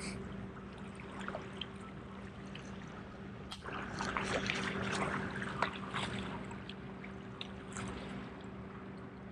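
Seawater lapping and washing against jetty rocks, with a steady low hum underneath. A louder, splashier wash with scattered ticks comes about four seconds in and lasts a couple of seconds.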